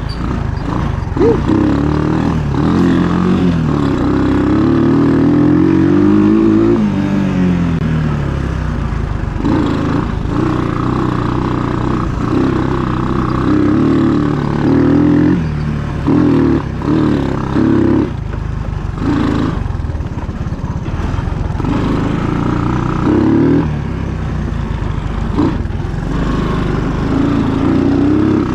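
1980 Honda ATC185 three-wheeler's single-cylinder four-stroke engine running while it is ridden, its pitch rising and falling with the throttle. Several short throttle blips come about halfway through.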